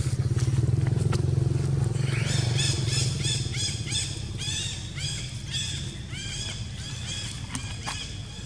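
A low engine hum, loudest in the first couple of seconds and then fading. From about two seconds in, a rapid series of high, arching chirps comes at roughly three a second.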